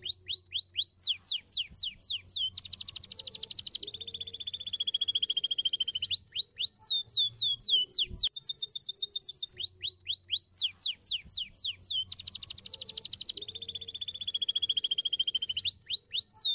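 Domestic canary singing a long, loud song of fast down-sweeping notes, a rapid buzzy trill and rolling two-pitch trills. The same sequence of phrases repeats about eight seconds in.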